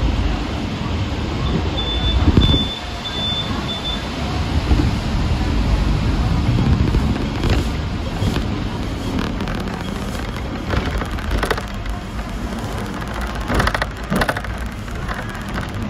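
Hong Kong double-decker tram running along its street track: a continuous low rumble with street traffic around it. A brief high-pitched tone sounds about two seconds in, and short clicks and knocks come through in the second half.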